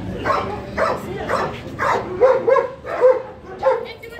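German shepherd dogs in wire kennel cages barking repeatedly, about two to three barks a second.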